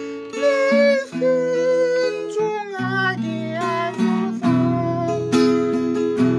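A woman singing a Korean hymn while strumming chords on an acoustic guitar.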